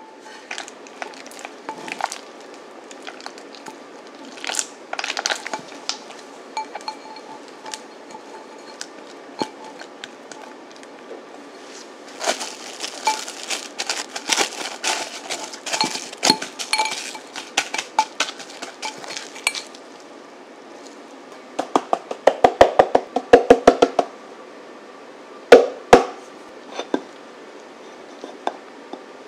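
Kitchen handling sounds: plastic cling wrap crinkling midway through as it is pulled and pressed over a glass mixing bowl, among clinks and knocks of bowls on a countertop. A quick run of clacks comes about three-quarters of the way through, and a single loud knock follows near the end.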